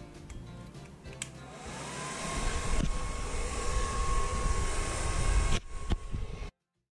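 Hair dryer switched on about a second in, its motor whine rising to a steady pitch over the rush of air. It stops abruptly near the end.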